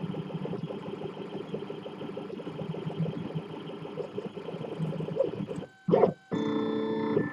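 3D printer stepper motors whirring in rapid, constantly changing tones as the print head moves quickly through honeycomb infill. About five and a half seconds in, the sound cuts out briefly apart from one short burst. It then returns as a steadier whine of several held tones.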